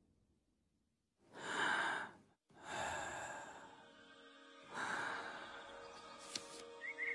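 Three breathy, sigh-like exhalations, each about a second long, after a second of near silence. Faint music with held tones comes in near the end.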